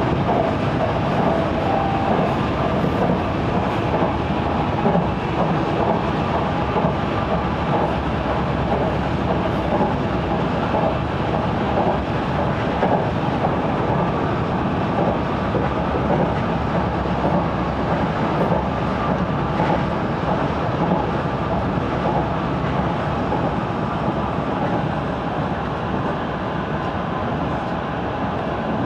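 Seibu Railway electric commuter train running at speed, heard from inside the front car: a steady rolling noise of wheels on rails with a few held mechanical tones, easing slightly near the end.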